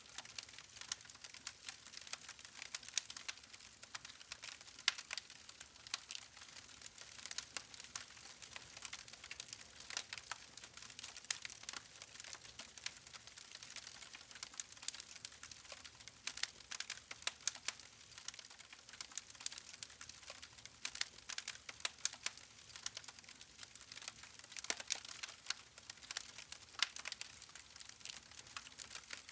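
Wood campfire crackling: irregular sharp pops and snaps, several a second, over a soft steady hiss of the burning logs.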